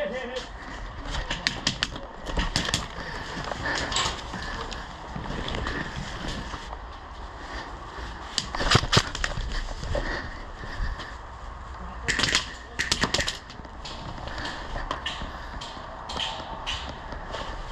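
Scattered clicks and knocks, bunched in short runs about a second in, around the middle and again near two-thirds through, over a steady low wind rumble on the microphone: an airsoft player's gear and rifle clattering as he moves.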